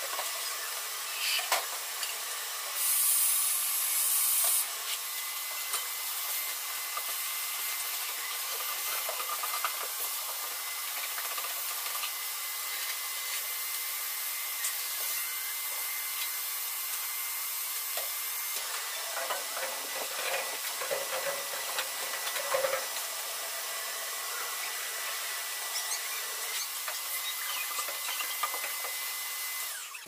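Shop vac running steadily with a rushing hiss and a thin motor whine while vacuuming a car's engine bay. The suction gets louder and brighter for about two seconds near the start, and there are irregular knocks and rattles around twenty seconds in. It cuts off at the very end.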